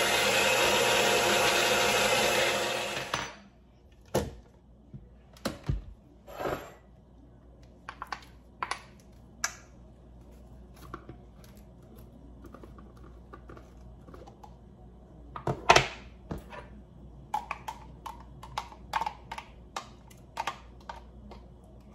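Personal blender running on tomato and carrot, then cutting off abruptly about three seconds in. After it come scattered clicks and knocks as the plastic blender cup is unscrewed from its blade base and the pulp is scraped out with a metal spoon, the loudest knock about sixteen seconds in.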